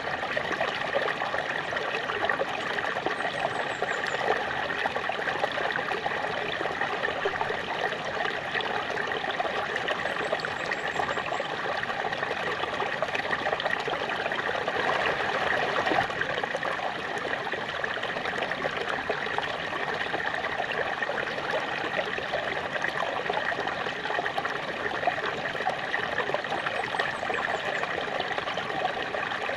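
Small waterfall splashing and trickling steadily, a constant rushing of falling water with no breaks.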